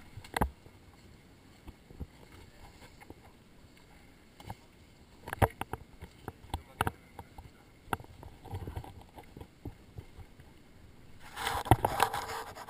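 Handling noise from a body-worn GoPro as a neoprene wetsuit is being taken off: scattered knocks and taps, then a louder stretch of rubbing and rustling near the end as the fabric brushes over the camera.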